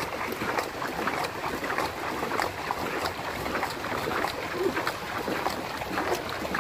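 Paddles of a racing longboat crew dipping and splashing in the water in repeated strokes, with wind rushing on the microphone.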